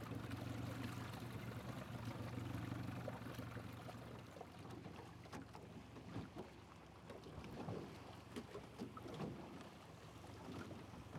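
Small boat's motor running with a steady low hum that drops off about four seconds in, then water slapping and splashing in short bursts against the hull and the seaweed-covered rocks.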